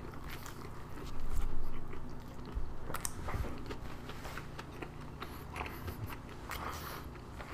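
A person biting into and chewing a Korean-style toast sandwich of toasted white bread, egg, cabbage and bacon, with small wet mouth clicks throughout.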